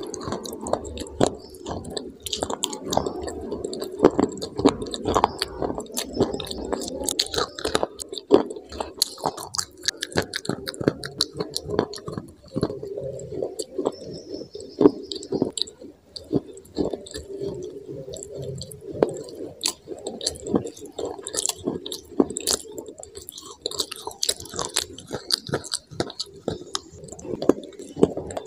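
Close-miked biting and chewing of hard white sticks: many sharp, irregular crunches and crackles in quick succession.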